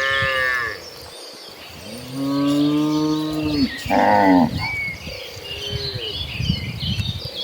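Cattle mooing in several calls: one that is already sounding at the start ends in under a second, a long, lower moo comes about two seconds in, and shorter moos follow around four and five seconds in.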